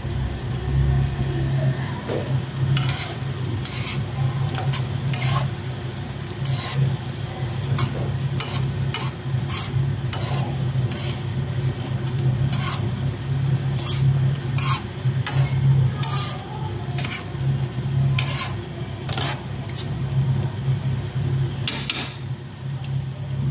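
Metal tongs clacking and scraping against a non-stick frying pan as mushrooms, baby corn and corn kernels are turned, over a light sizzle of frying. A steady low hum runs underneath.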